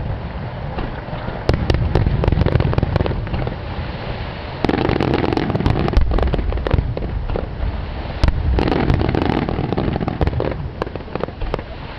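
Rapid-fire aerial fireworks bursting in quick succession: a continuous booming rumble packed with dense crackling pops, swelling as new volleys go up about a second and a half, five seconds and eight and a half seconds in.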